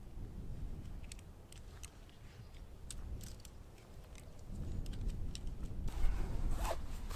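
Scattered light clicks and rustles of tent gear being handled and packed away. From about halfway, wind rumbles on the microphone. Near the end it turns to louder rustling of a rucksack being stuffed, with the wind buffeting harder.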